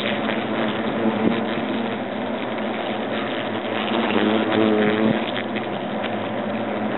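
European hornets buzzing around their nest, with one droning louder as it flies close to the microphone about four seconds in.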